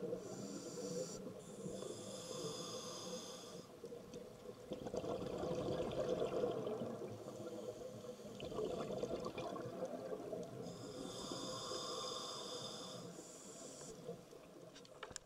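Scuba diver breathing through a regulator, heard underwater: a hissing inhalation near the start and again about two-thirds of the way through, with bubbling exhalation in between.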